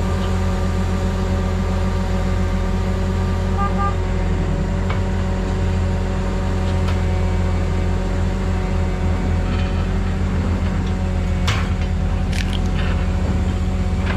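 Heavy diesel engines of the mobile cranes running steadily, with a deep even drone. A few sharp metallic clanks come near the end.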